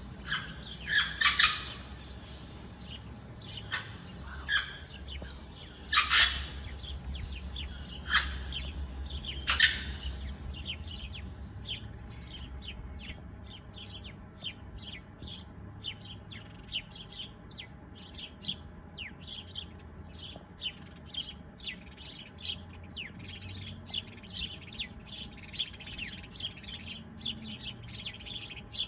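Songbirds chirping. For the first ten seconds, loud sharp chirps come every second or two; after that, a quick run of many short, high chirps follows at several a second. A thin steady high tone runs under the first dozen seconds.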